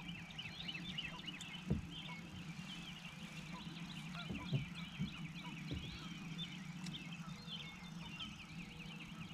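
Birds chattering and singing in a continuous jumble of short, quick high notes, over a low steady hum.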